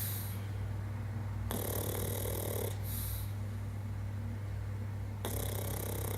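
A pug snoring in its sleep: one snoring breath about a second and a half in, lasting just over a second, and another starting near the end.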